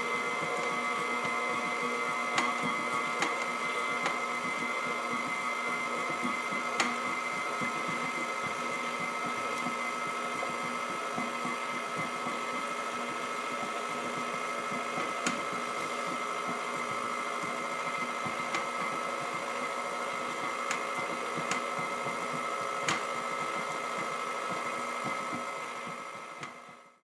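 KitchenAid Professional 5 stand mixer running steadily, its beater turning in a batter, a constant motor whine with a few sharp ticks scattered through it. It fades out near the end.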